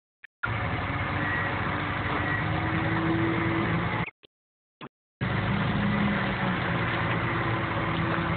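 Forklift engines running steadily at idle. The sound cuts out completely for about a second, a little after four seconds in, then carries on.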